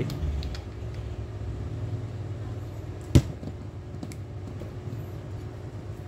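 Handheld fiber optic cleaver giving one sharp click about three seconds in as it is worked on a stripped fiber drop cable, with a few faint handling clicks around it, over a steady low hum.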